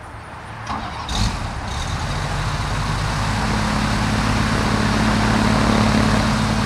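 Jabiru engine of a small homebuilt airplane starting up: a couple of sharp catches about a second in, then the engine running with its propeller turning, growing steadily louder.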